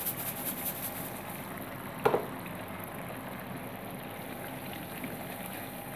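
Blended onion paste frying in hot oil in a pan: a steady bubbling sizzle. There is a single sharp knock about two seconds in.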